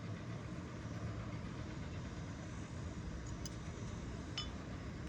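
Steady low hum of an engine or motor running, with two faint light clicks near the end.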